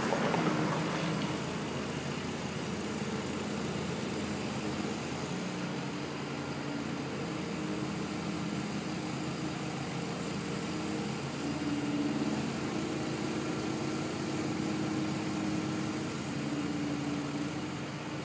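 A steady low motor hum with a few pitch lines that shift slightly about two-thirds of the way through.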